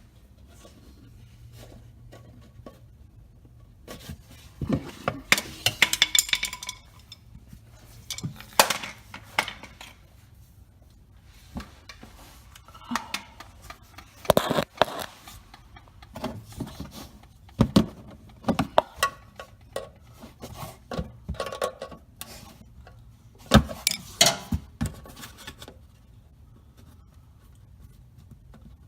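A flathead screwdriver working at stubborn plastic push clips on a Nissan 350Z's front bumper: irregular bursts of scraping, clicking and clinking, in several clusters a few seconds apart.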